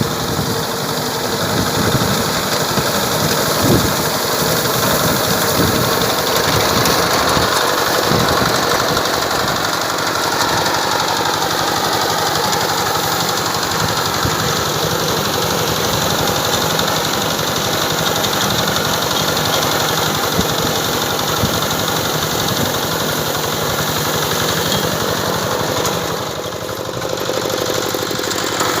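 Rice harvesting machine running steadily while cutting, its engine and cutter working with a knocking chatter, the level dipping briefly near the end.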